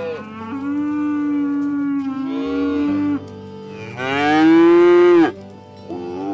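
Cattle mooing: a long low moo, then a louder moo that rises in pitch about four seconds in, and a short call starting near the end.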